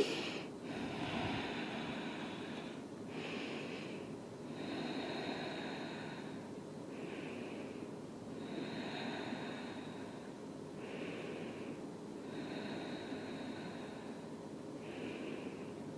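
A woman breathing slowly and deeply, in and out, about four full breaths. Each breath is a soft, breathy sound lasting a second or two, with a short pause between breaths.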